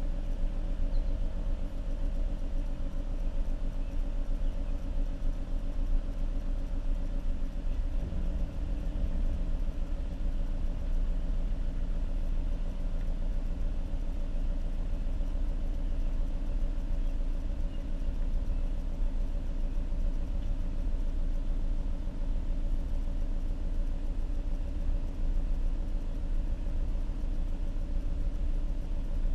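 Stock exhaust of a 2014 Ford Mustang's 3.7-litre V6, running steadily while the car drives at an even pace, with a slight shift in engine pitch about eight seconds in.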